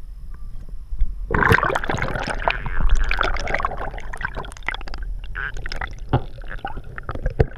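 Water gurgling and rushing around a camera pushed under the surface, with crackly bubbling and small knocks, starting about a second in.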